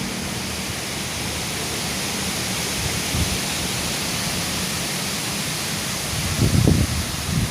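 Strong storm wind blowing as a steady rushing hiss. About six seconds in, gusts start to buffet the microphone with low rumbles.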